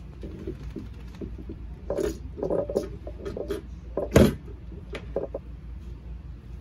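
A run of short knocks and clatters, the loudest a sharp thump just after four seconds in, over a steady low hum.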